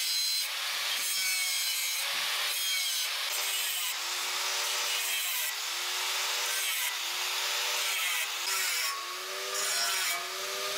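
Angle grinder working the edge of a curved steel plate: a loud, harsh grinding hiss. The motor's note sags and recovers every second or so as the disc is pressed into the metal.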